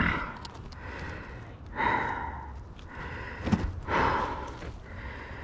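A man gasping and breathing hard in pain after falling, two heavy breaths about two seconds apart, with a few light knocks and rustles between.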